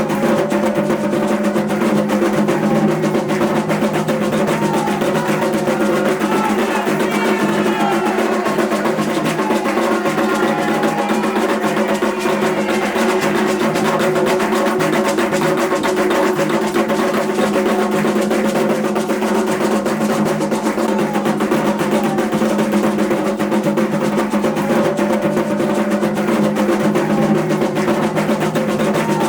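Fast, continuous drumming for Xangô in Afro-Brazilian ritual music, the strokes running together almost like a roll over a steady low hum. Faint sliding voices are heard above it in the middle.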